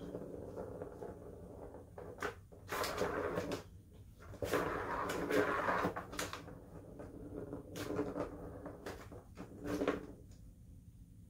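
A Siamese cat's claws scratching and digging at the corrugated cardboard pad in the middle of a plastic Turbo Scratcher toy. The scratching comes in several short, irregular bouts, with sharp knocks against the plastic ring.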